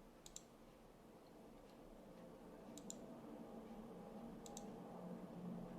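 Computer mouse clicking: three quick double clicks a second or two apart, faint against room tone.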